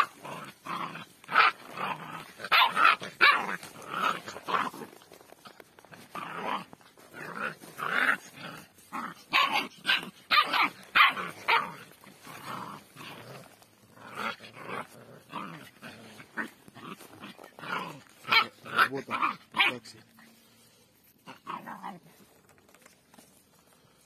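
Puppies barking in rough play, quick short yaps one after another, thinning out and going quieter about twenty seconds in.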